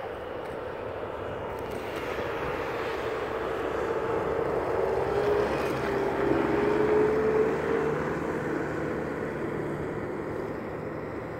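A passing engine drone that swells to its loudest about seven seconds in and then fades, with a steady hum and a slightly wavering middle tone over a rushing noise.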